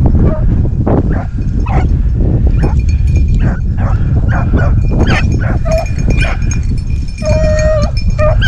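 A pack of rabbit hounds baying and yelping over and over while running a rabbit's trail, with one longer drawn-out bawl near the end. A steady low rumble sits underneath.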